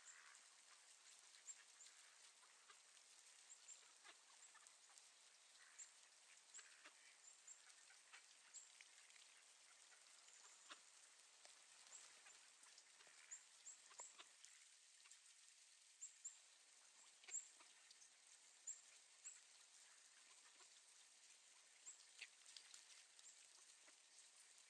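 Faint light rain ticking steadily, with mallard ducks quacking now and then.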